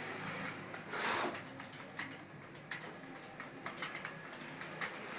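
Computer keyboard being typed on: quick, uneven key clicks, a few a second, during a timed home-row typing test. A brief rushing noise cuts in about a second in.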